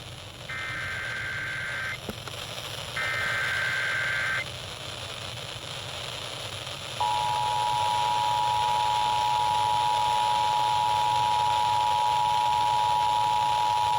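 Emergency Alert System SAME header: two bursts of screeching digital data tones about a second apart, near the start of a new alert. After a short hissing pause, the steady EAS two-tone attention signal starts about seven seconds in and holds, announcing the alert message. A radio hiss lies underneath throughout.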